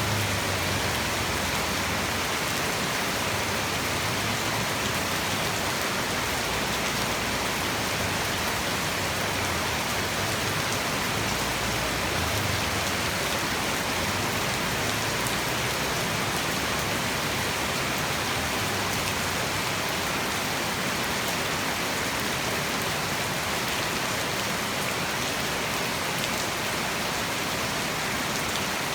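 Heavy tropical rain falling in a steady, dense downpour.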